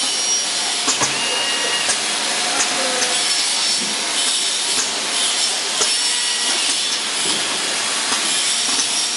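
Four-head automatic motor oil filling machine running: a steady hiss with a few sharp clacks, about a second in and again near the middle.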